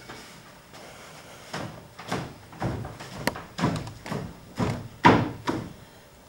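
Footsteps on a stage floor, about two a second, getting louder as the walker comes closer.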